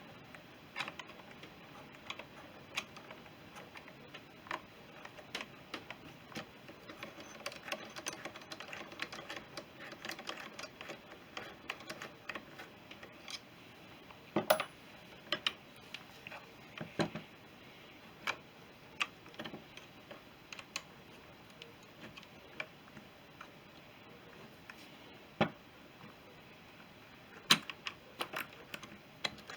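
Irregular small metallic clicks and taps of carburettor parts and hand tools being handled and fitted, with a few sharper knocks now and then.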